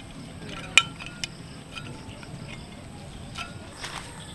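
A sharp, ringing clink a little under a second in, followed by a few fainter clinks, over steady outdoor background noise.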